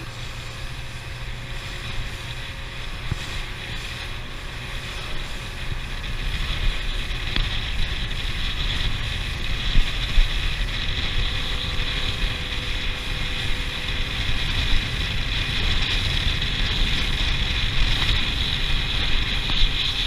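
Motorboat running at speed across open water: a steady engine drone under a haze of wind buffeting the microphone and water rushing past the hull, getting louder about six seconds in.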